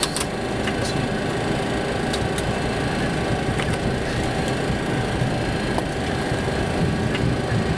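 Steady cockpit noise of an MD-80 taxiing slowly along the runway: a low rumble and hum of the rear-mounted Pratt & Whitney JT8D engines at idle, mixed with cockpit air and fans. A few faint clicks come through.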